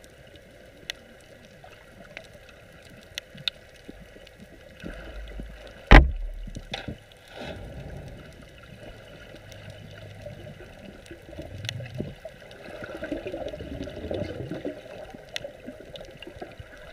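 Underwater sound on a coral reef with a gurgling water rush that swells and fades, scattered faint clicks, and one sharp knock about six seconds in.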